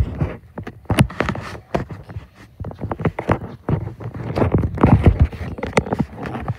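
Handling noise from a phone being carried and moved about: irregular knocks, thumps and scraping, rustling rubs against the microphone.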